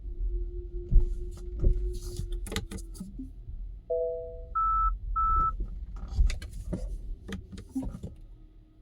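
2021 Tesla Model 3 driving over small bumps, with low road rumble and bursts of sharp metallic knocks from the front left suspension that persist even with all-new front left suspension parts. About four seconds in, a short two-note car chime is followed by two higher beeps.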